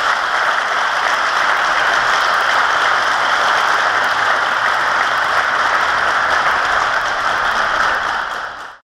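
Sustained applause from a large group of people clapping, steady and then fading out near the end.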